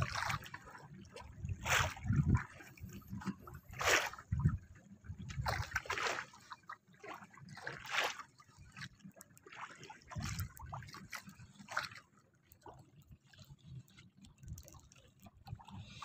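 Sea water slapping and splashing against the side of a small wooden boat, in short surges about every two seconds.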